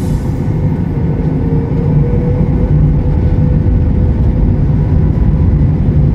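Jet airliner cabin noise from a window seat over the wing of a Boeing 737 MAX 8 rolling on the ground: a loud, steady engine rumble with a steady hum over it.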